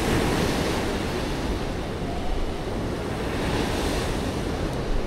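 Ocean surf breaking and washing up a sandy beach, swelling just after the start and again near the four-second mark, with wind rumbling on the microphone.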